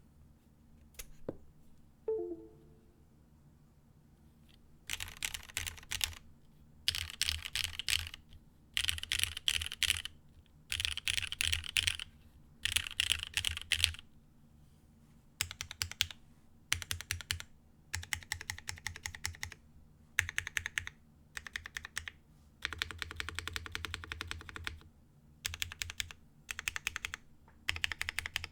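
Mechanical keyboard with Cherry MX Black Hyperglide linear switches on an ABS plate and GMK keycaps, clacky under the typing. After a few quiet seconds it is struck in rapid runs of keystrokes, about a second each, repeating ASDF. Later come shorter, uneven groups of presses on the modifier keys.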